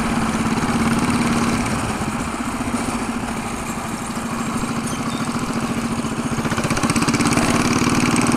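Mini bike's small engine running while being ridden, its exhaust pulses steady, then picking up and getting louder about seven seconds in.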